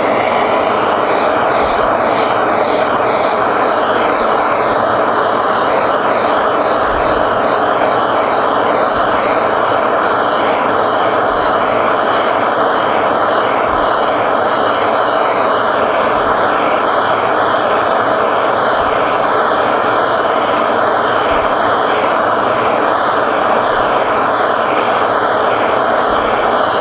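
Propane torch burning with a steady, unbroken hiss as its flame heats copper boiler end plates to red heat for annealing.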